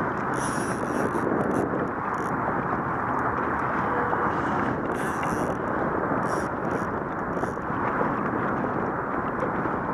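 Steady rushing wind noise on the microphone of a camera on an open boat, with short hissy bursts now and then.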